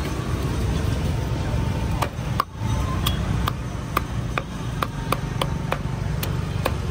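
A cleaver chopping on a cutting block in a steady rhythm, about two to three strokes a second, starting about two seconds in. Under it runs a low, steady rumble of street noise.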